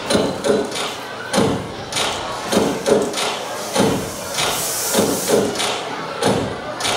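Dance music playing over a hall sound system, with a heavy thumping beat. About four and a half seconds in, a stage fog machine gives a brief hiss.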